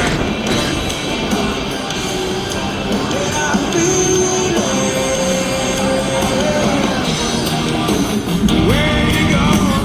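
Background rock music with a sung melody and guitar.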